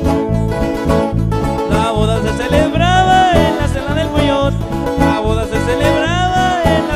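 Live band music: plucked string instruments and bass over a steady pulsing beat, with a high melodic line that swells up and falls back twice.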